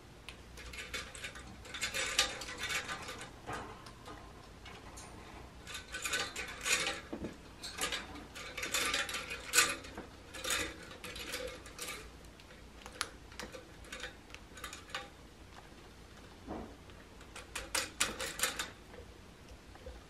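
American crow pecking and tugging at a plastic ring toy hung on a PVC perch pole, making bouts of rapid clicking and clattering with short pauses between.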